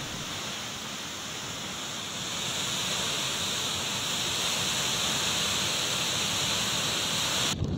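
Rushing floodwater released through a dam's open spillway gates: a steady hiss of pouring water that grows louder a few seconds in and cuts off abruptly near the end.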